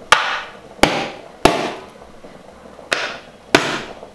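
Plastic jar lids knocked down hard against a plastic-covered worktop to release steamed sago papads from them, five sharp knocks in all: three in quick succession, then two more.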